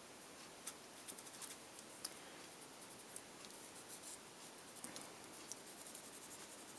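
Faint, irregular scratching of a Prismacolor pencil worked in short strokes over coloured-pencil layers on paper, blending and softening the colour.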